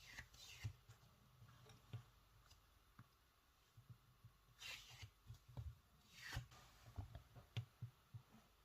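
Faint handling sounds of working plasticine clay: scattered soft taps and clicks, with two brief rustles about halfway through.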